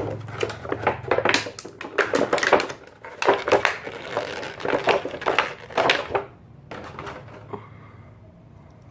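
Small hard plastic Beyblade parts clicking and clattering as they are handled and snapped apart, in quick irregular clicks that stop about six seconds in.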